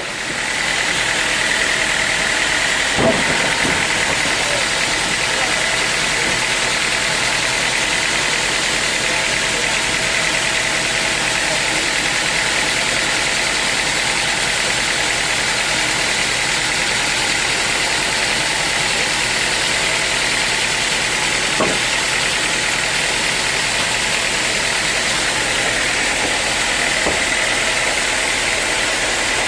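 Sawmill machinery running steadily with a high whine, its level holding even after it comes up at the start. Two short knocks, one about three seconds in and one a little past twenty seconds.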